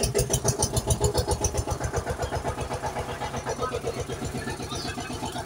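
Tractor diesel engine chugging in a fast, even putt-putt rhythm.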